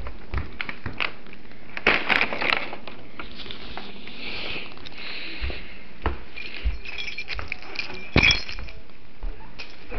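Scattered light clinks and knocks of household items being handled, with a clatter about two seconds in, a rustle around four to five seconds in, and a sharper knock about eight seconds in.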